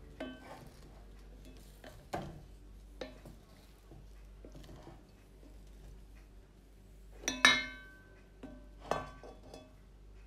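Wooden spatula stirring and scraping cooked grain rice in an enamelled pot, with scattered knocks against the pot. The loudest is a ringing clink about seven seconds in, with another just before nine seconds.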